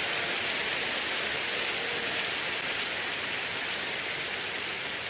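Congregation applauding, a dense steady clapping that eases off slightly toward the end.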